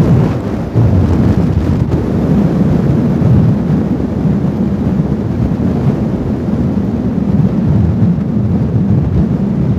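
Fagradalsfjall volcano's lava fountain surging up from the crater, heard as a loud, low, continuous rumble.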